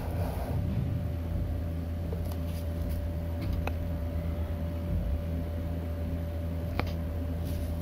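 Steady low machine hum with a thin steady whine over it, broken by a couple of faint clicks.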